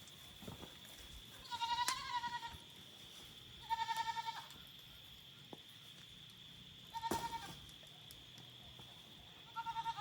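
Goats bleating four times, each a wavering call of about half a second to a second, the last starting near the end. A steady high cricket trill runs underneath.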